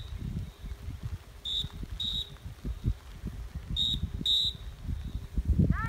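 Electronic beeper collar on a working hunting dog giving short high beeps in pairs, a pair about every two seconds, over a low rumble of wind on the microphone.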